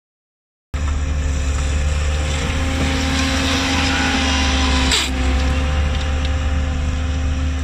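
Skid-steer loader running steadily with a hydraulic soil conditioner attachment, a deep engine hum under a steady whine, starting abruptly under a second in. A short sharp clatter about five seconds in.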